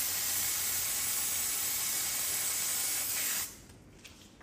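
Aerosol bug spray can hissing in one long continuous spray that cuts off suddenly about three and a half seconds in.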